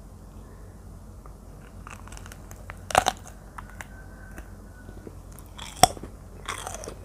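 Biting into a slice of R2 mango dipped in chili salt: one sharp crunch about three seconds in, then chewing with small crackly clicks and a second crisp crunch near six seconds.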